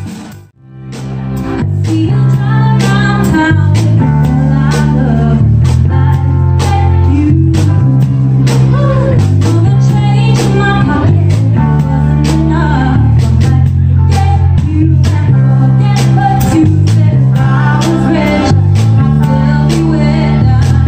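Live band playing loud: bass guitar, drums and guitar with a singer. The music drops almost to nothing about half a second in, then builds back up within a second or so.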